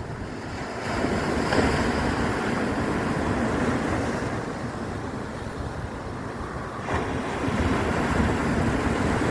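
Ocean waves breaking and washing in, with the surf swelling about a second in and again about seven seconds in, over wind rumbling on the microphone.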